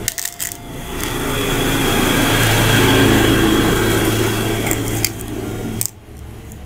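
A loud motor-like rushing noise with a steady low hum swells to a peak about three seconds in, then drops away sharply near the end. A few light clicks of congklak seeds dropping into the plastic board sound through it.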